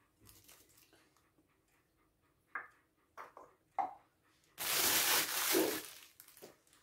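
Kitchen handling sounds: a few light taps and clicks as food is arranged on a metal baking tray, then a louder rustling hiss lasting just over a second, about two-thirds of the way in.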